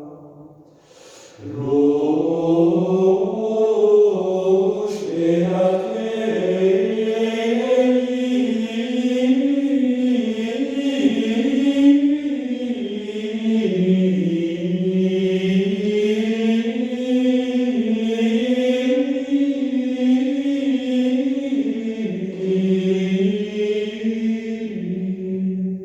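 Choir singing a slow Requiem in sustained, shifting chords, played back through hi-fi loudspeakers. The voices fall away briefly at the start and re-enter about a second and a half in.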